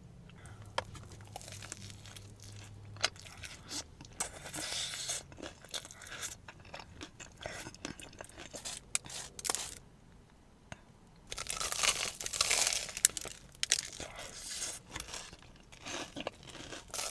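Crunching and chewing on a fried Korean corn dog: crisp bites on the coating and mouth sounds, with the loudest run of crunches about twelve seconds in.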